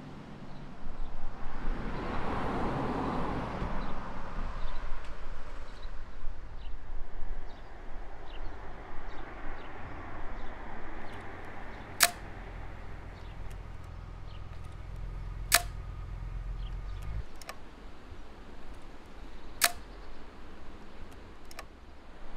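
Street ambience with a vehicle passing a couple of seconds in, then three sharp camera-shutter clicks spaced three to four seconds apart, each time a new print appears.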